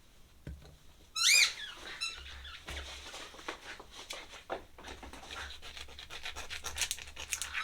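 A squeaky toy squeaks loudly a few times in quick succession about a second in. After that comes a run of scratching and rubbing sounds.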